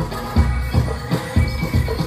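Electronic world-fusion dance music with a steady low drum beat, about three beats a second.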